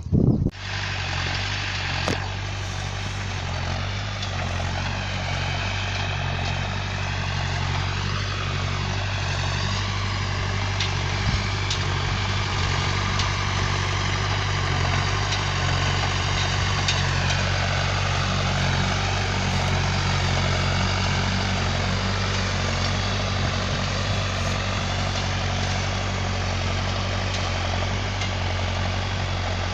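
A John Deere 310A backhoe loader's diesel engine running steadily.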